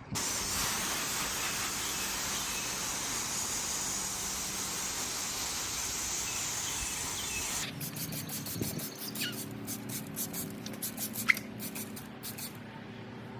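CarPro Iron X iron remover being sprayed onto car paint: a steady hiss for about eight seconds, then a run of short, quick sprays.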